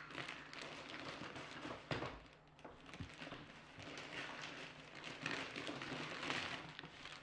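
Wrapping paper rustling and a cardboard toy box being handled, with a couple of soft knocks about two and three seconds in.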